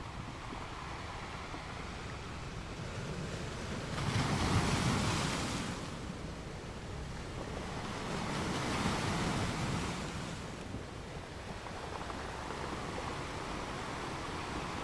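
Gentle ocean waves washing onto a sandy beach, a steady hiss of surf that swells with a louder wave about four seconds in and again about eight seconds in.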